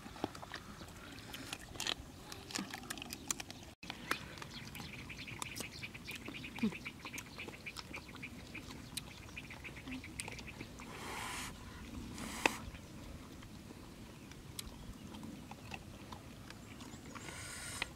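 Two dogs eating side by side: wet chewing and smacking with many small crunching clicks throughout, and one sharper crack about two-thirds of the way through.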